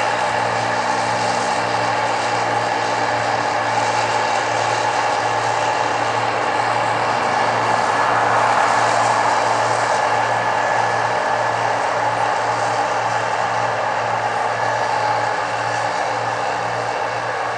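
Massey Ferguson 8570 combine harvester running steadily while harvesting corn, a constant engine hum under a wide mechanical drone that swells slightly about halfway through and eases off near the end.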